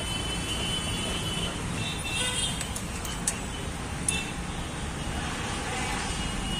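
Steady background rumble of road traffic, with a couple of light metallic clicks about three and four seconds in from an open-ended spanner being worked on the camshaft sprocket bolt.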